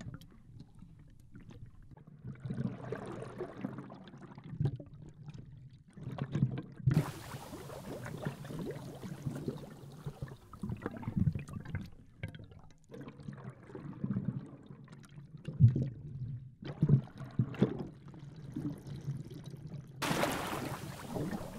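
Water sloshing and gurgling in uneven surges, heard through an underwater camera just below the surface.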